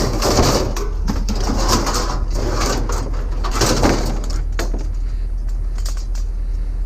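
Metal parts of an appliance clattering and scraping in irregular bursts as it is pulled apart for scrap, with short clicks, over a steady low hum.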